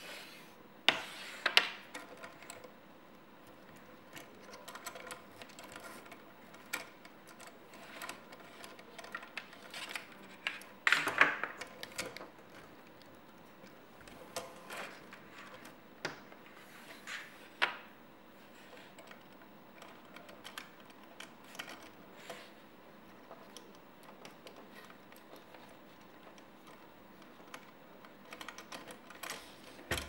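Paracord being handled and threaded on a metal jig fitted with plastic side-release buckles: irregular light clicks and taps with soft rustling of cord, in louder clusters about a second in and again about eleven seconds in.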